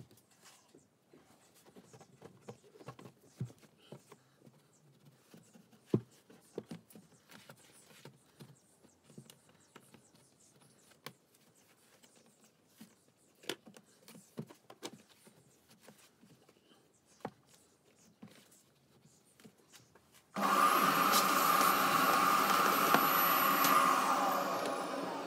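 Light scattered knocks and rubbing of a cloth wiping down a plastic window frame, then about twenty seconds in a vacuum cleaner switches on abruptly and runs steadily with a high whine, fading near the end.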